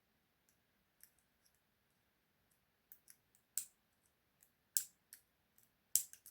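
Thin wire picks clicking against the levers and post inside the keyway of a British two-lever padlock: an uneven string of light metallic clicks, with three sharper ones about a second apart in the second half.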